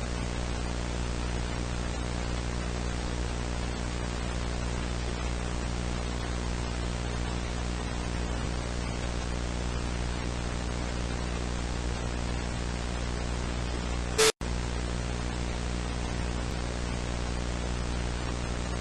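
Steady broadcast static, a hiss over a low buzzing hum: the dead air between emergency alert messages. About fourteen seconds in, a brief loud crackle and a split-second dropout break it, and then the static resumes.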